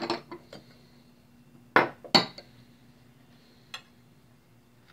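Table knife clinking against a glass butter dish and a ceramic dinner plate as butter is scooped and spread on cornbread: a few light clicks, then two sharp clinks about a third of a second apart near the middle, and one faint tick later.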